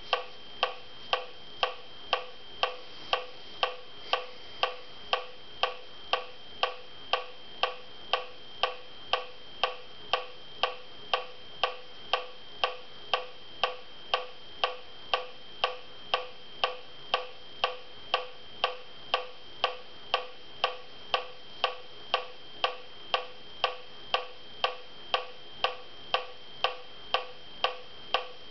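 Metronome clicking at a steady tempo, a little under two clicks a second, each click a short, high, ringing beep.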